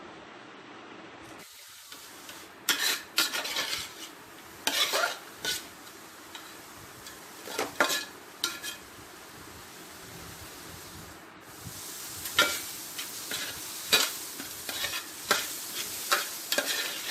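Chopped onions sizzling in hot oil in a pan while a spoon stirs them, scraping against the pan in scattered runs that get busier in the last few seconds. This is the onions being sautéed soft, the first stage of the curry gravy.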